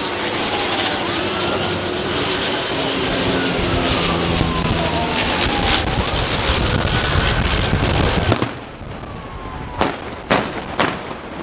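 Canadair CL-415 water bomber passing low with its engines running loud, a siren wailing up and down behind it. About eight seconds in the engine noise drops away sharply, leaving the siren and three sharp bangs near the end.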